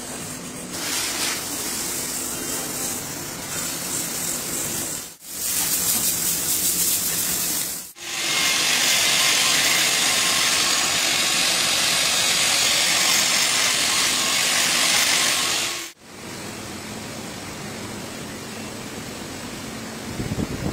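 Hand-held angle grinder with an abrasive disc buffing the rubber of a truck tyre casing: a loud, steady, high grinding noise. It breaks off abruptly a few times, with a quieter steady workshop noise before and after the loudest stretch.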